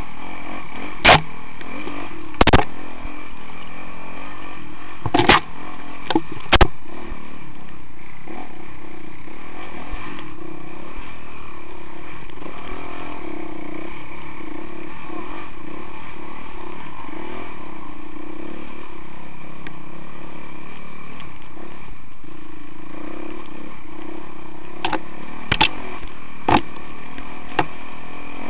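2017 Honda CRF450R's single-cylinder four-stroke engine running steadily as the dirt bike rides a rough, rocky trail, with sharp knocks cutting in: four in the first seven seconds and two more near the end.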